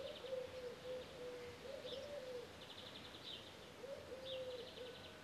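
Faint birdsong: a dove cooing in low, repeated phrases, with a small bird's rapid high trills over it several times.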